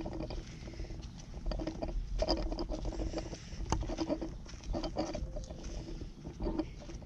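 Footsteps on a driveway: irregular light taps and scuffs, with some rustling.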